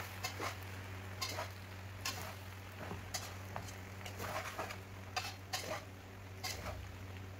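A metal spatula scrapes and clinks against an aluminium pan as cooked macaroni with vegetables and chicken is stirred and tossed, in short irregular strokes roughly once or twice a second. A steady low hum runs underneath.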